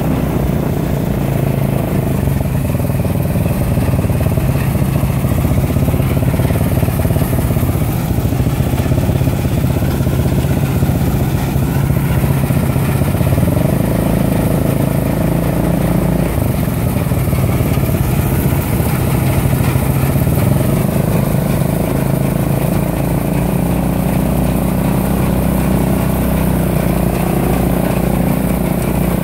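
Fahr M44 combine harvester running steadily while it harvests grain, its engine note shifting slightly about halfway through.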